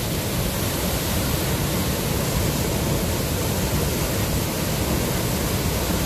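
Ceunant Mawr waterfall on the Afon Arddu plunging into its pool: a steady, unbroken rush of falling water.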